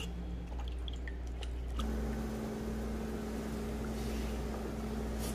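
Faint wet squishing and small clicks as a live webfoot octopus is handled on a wooden cutting board, then from about two seconds in a steady hum and hiss as the octopus goes into a pot of simmering broth.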